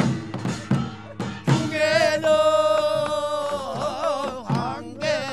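Korean traditional folk singing with a drum beat. About two seconds in, the voice holds one long note with a wide, wavering vibrato while the drum strokes continue.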